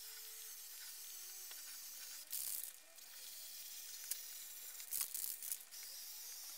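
Aerosol spray can of clear varnish hissing as it is sprayed over the panels, with two louder bursts about two and a half and five seconds in.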